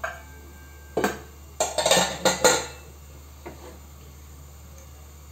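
Kitchen utensils and dishes clinking and knocking as they are handled beside the stove: a knock at the start, another about a second in, then a quick cluster of clinks before the sound falls away to one faint tap.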